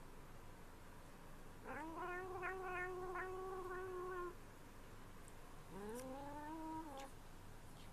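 Calico cat giving two drawn-out cries while licking a squeeze-tube treat. Each cry slides up at the start and then holds steady. The first lasts over two seconds; the second, shorter one comes about two seconds later.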